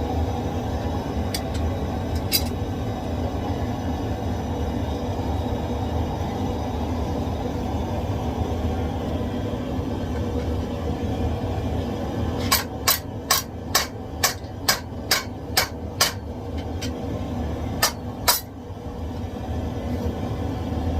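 Hammer blows striking metal on an anvil: a quick run of about nine sharp ringing strikes midway, then two more, over a steady low rumble.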